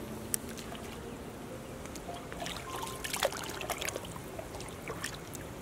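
Shallow water splashing and trickling as a hand reaches in and stirs it, with a cluster of sharper splashes about three seconds in.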